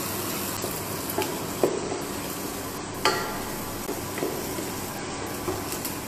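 Chopped onions and garlic sizzling in olive oil in a pan, being sweated until translucent, while a spoon stirs them with a few clicks against the pan; the sharpest knock comes about three seconds in.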